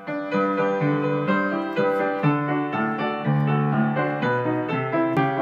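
Piano music: a melody with new notes about twice a second over held bass notes.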